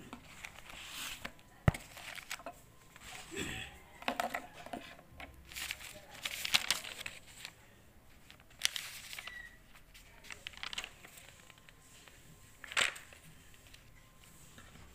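Sheets of paper rustling and crinkling in bursts as loose number charts and a notebook are handled, with a sharp click about two seconds in.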